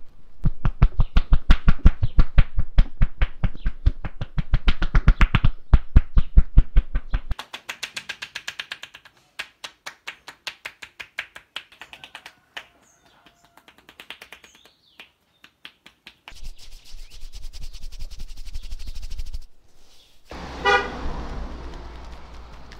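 Fast, even hand strikes of a percussive massage, several a second, loud for about the first seven seconds and then softer and sparser. A vehicle horn sounds briefly near the end.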